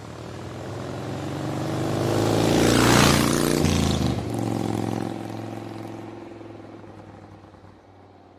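Vehicle engine pass-by sound effect. It grows louder to a peak about three seconds in, drops in pitch as it goes past, then fades away.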